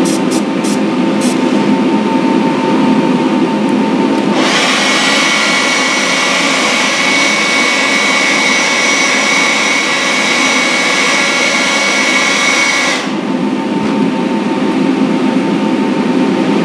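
Airbrush spray booth's extractor fan running steadily, a little bit loud. An airbrush spraying a flat top coat gives a few short puffs in the first second, then hisses continuously from about four seconds in until about thirteen seconds in, when it stops.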